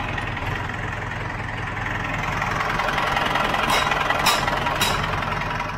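JCB backhoe loader's Kirloskar diesel engine idling steadily, just after starting. A few sharp clicks sound over it in the second half.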